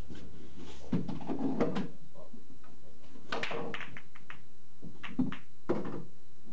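Pool break shot: the cue ball cracks into the racked balls about three seconds in, followed by a quick clatter of balls clicking against each other. A few more knocks follow as balls hit the cushions and drop.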